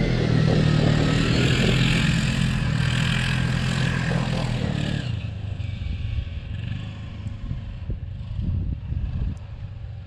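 A side-by-side utility vehicle's engine running as it drives away, its sound fading steadily with distance. It drops off markedly after about five seconds.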